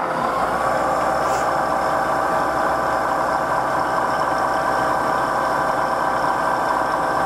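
Turn-Pro vertical milling machine's spindle, just switched on and running steadily in low range with an end mill in the collet: an even machine whine of several steady tones over a low hum.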